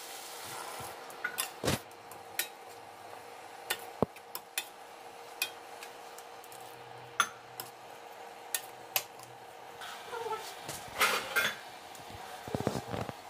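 Metal spatula stirring jackfruit curry in a stainless-steel kadhai, with irregular clinks and knocks against the pan and a quick cluster of clatters near the end.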